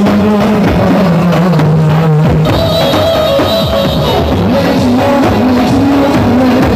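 Loud dance music for a Turkish halay line dance: a steady drum beat under a held melody that steps down in pitch and later climbs again.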